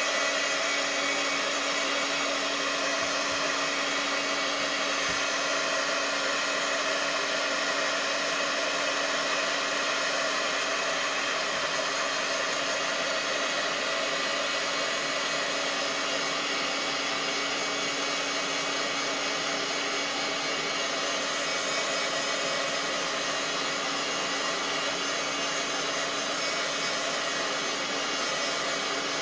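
Handheld craft heat tool running steadily, its fan blowing hot air to dry glue on a decoupaged napkin, with a steady motor hum under the rush of air.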